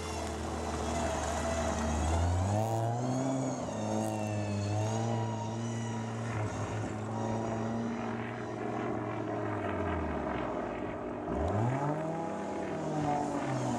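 Ford Escort rally car engine revving as it is driven hard round a gravel track. The pitch climbs a couple of seconds in and holds, drops off about ten seconds in, then rises and falls again in several quick swoops near the end.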